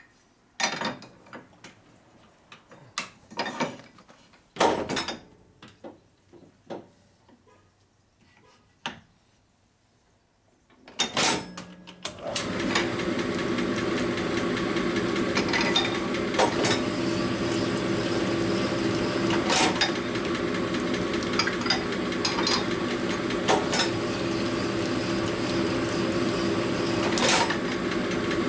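Metal clinks and knocks as the honing stone is swapped and a connecting rod is set up, then, about 12 seconds in, the rod honing machine starts and runs steadily, a motor hum with scraping and ticking as the medium-grit stone hones the rod's bore.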